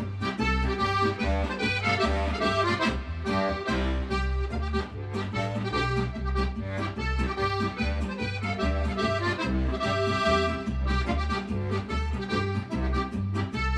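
Butolen diatonic button accordion playing a lively folk tune: a melody in the treble over a steady, evenly pulsing bass.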